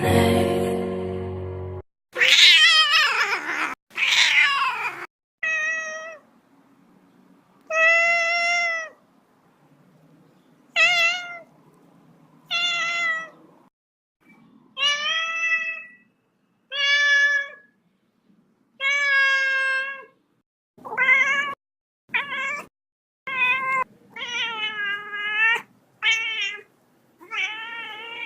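A cat meowing over and over, about fifteen separate meows each roughly a second long, some rising and falling in pitch.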